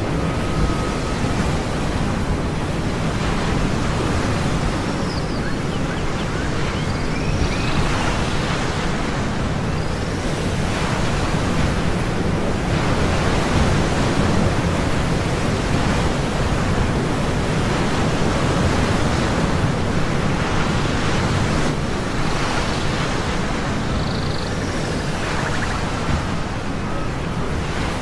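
Steady rush of ocean surf and wind, with a few faint, short high chirps now and then.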